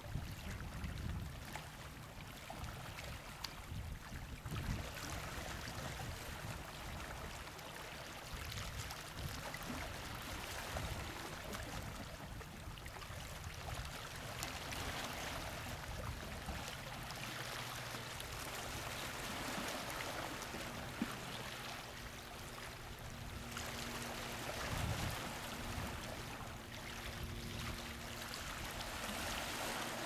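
Black Sea water lapping and sloshing against shoreline rocks: a continuous wash of small waves that swells and eases.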